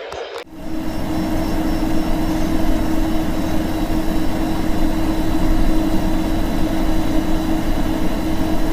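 Loud steady radio static from a weather radio receiver, a hiss across the whole range with a low steady hum, cutting in abruptly about half a second in.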